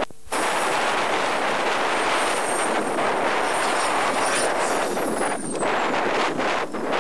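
Home-built model turbojet (gas turbine) engine running at high power: a loud, steady rushing roar with a faint high whine that drops in pitch a little before five seconds in. The sound cuts out briefly just after the start.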